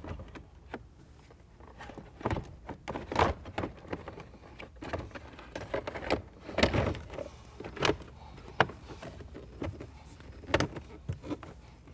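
Jeep Wrangler JK's plastic factory dash bezel being fitted and pressed into place: a series of irregular plastic clicks, knocks and rubbing.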